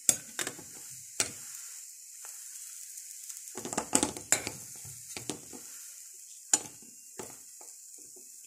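Crumpet thins frying in butter in a small frying pan, a steady sizzle. A metal spatula and the pan knock and scrape a dozen times, most in a quick cluster about four seconds in.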